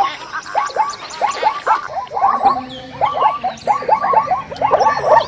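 Zebras calling: a fast, unbroken run of short yelping barks, several a second, with calls overlapping.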